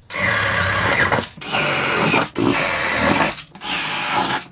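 Power drill with a large bit boring through wooden ceiling joists, in four runs with short pauses between, the motor's whine rising and falling in pitch as the bit loads.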